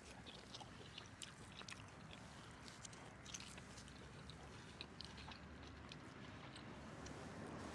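A person chewing and biting into cooked pheasant meat: faint, irregular crunchy clicks.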